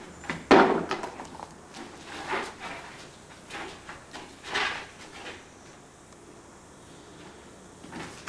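A few short scrapes and knocks, irregularly spaced: the loudest about half a second in, then softer ones over the next few seconds and a faint one near the end.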